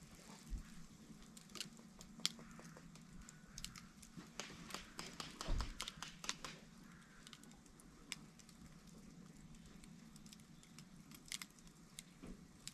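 Small wood fire crackling with irregular sharp snaps and pops, which come thickest a few seconds in and again near the end, over a faint steady low hum.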